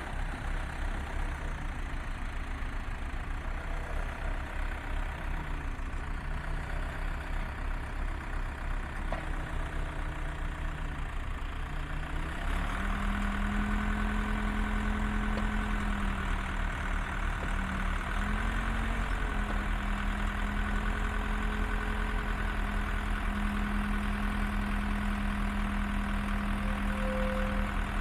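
Engine of a 1979 Case 580C backhoe running steadily at low speed. About twelve seconds in it speeds up and gets louder, then holds a steady higher speed with a brief dip or two.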